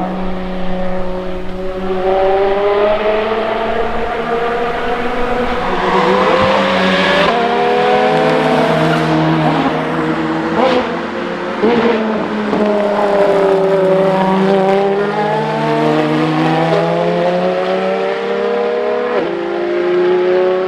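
Ferrari FXX K EVO V12 engines at full throttle on track. The pitch climbs steadily and breaks sharply at several gear shifts, as the cars accelerate past and fade.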